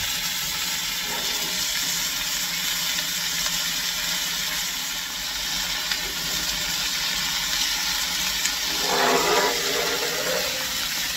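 Steady hissing sizzle of mushrooms, onions and peppers frying in oil on a coal shovel held in a steam locomotive's firebox, over the rush of the coal fire. About nine seconds in, a louder, lower sound swells briefly as the shovel is drawn back to the firehole.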